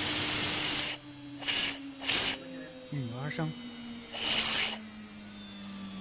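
CNC engraving machine's spindle whining steadily, its pitch slowly falling as it spins down after the engraving. It is broken by several short bursts of hiss, the longest at the start.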